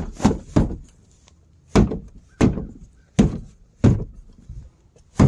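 About eight hard thumps of a hand pushing and knocking on a refitted rear panel of a Honda Fit, testing that it is now seated tight. The hits are quick and clean, with short gaps.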